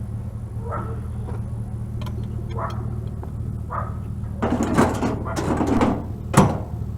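A dog barking repeatedly, about once a second, over a vehicle engine idling. Near the end come a burst of metallic clattering and then a single sharp bang.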